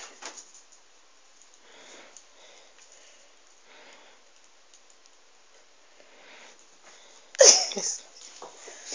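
Faint, short sniffs every couple of seconds, then one loud, sharp sniff about seven and a half seconds in.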